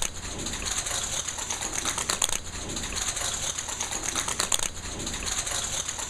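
A papillon's and a miniature schnauzer's claws clicking rapidly and irregularly on a parquet wood floor as the dogs run.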